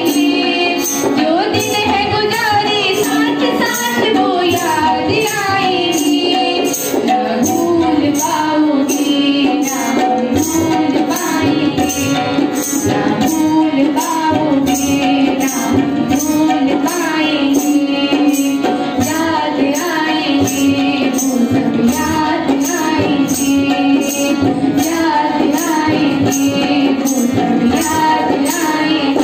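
Schoolgirls singing a song together into a microphone, accompanied by a harmonium's held drone, a tambourine jingling on a steady beat, and a hand drum.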